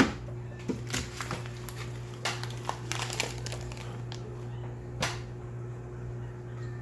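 Steady low hum of running aquarium equipment, with scattered clicks and rustles of the recording phone being handled; the sharpest click comes right at the start, a cluster a couple of seconds in, and another about five seconds in.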